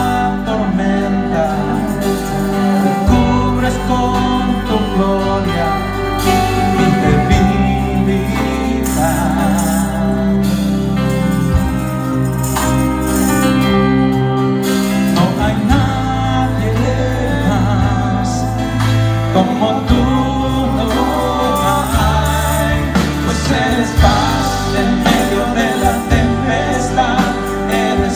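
Live church worship band playing a slow song on keyboard and guitar, with sustained low bass notes that change every few seconds and a voice singing over it. Hand tambourines jingle along.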